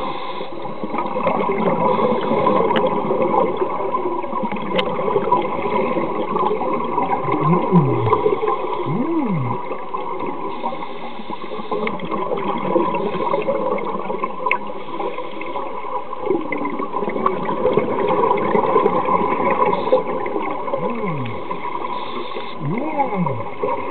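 Underwater sound of a scuba diver breathing through a regulator: a steady gurgling and bubbling of exhaled air, with a few brief swooping tones every several seconds.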